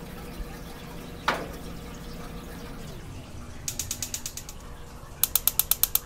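Char-Broil grill's battery-powered electronic ignition module snapping sparks at the burner electrodes: a rapid, even train of sharp clicks, about seven a second, faint a little past halfway and louder near the end, a sign that the new module and electrodes are sparking. A single click comes about a second in.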